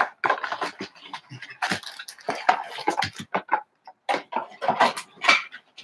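Cardboard blaster box of trading cards being pulled open and its card packs handled: an irregular run of rustles, crinkles and sharp taps, a few of them louder.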